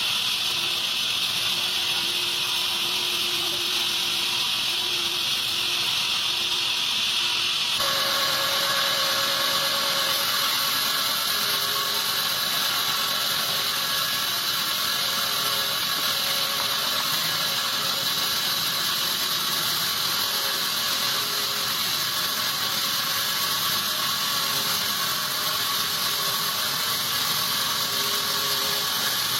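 Sawmill saw ripping a teak log lengthwise, a steady hissing mechanical noise; its tone shifts about eight seconds in and then runs on evenly.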